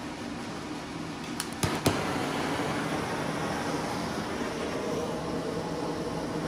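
The forge's electric blower fan runs with a steady rush. About one and a half seconds in, a few sharp clicks come from the handheld propane torch igniter, and after them the steady rushing is slightly louder.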